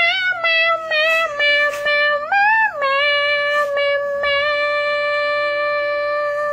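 A high-pitched voice holding one long note, dubbed over the clip. It wavers at first, rises briefly about two and a half seconds in, then holds steady.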